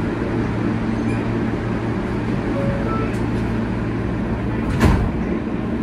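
R160B subway car with Siemens propulsion running at steady speed: a constant rumble of wheels on rail with a level motor hum. There is one sharp knock about five seconds in.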